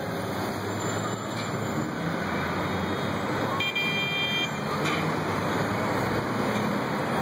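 Steady city street traffic noise, with a vehicle horn sounding once, briefly, about three and a half seconds in.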